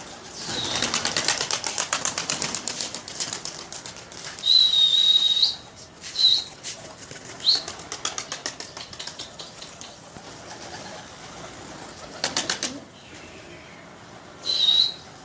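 Domestic pigeons flapping their wings in flurries of rapid wingbeats. Several short, loud, high-pitched squeaks are heard over them; the longest, about a second, is near the middle and is the loudest sound.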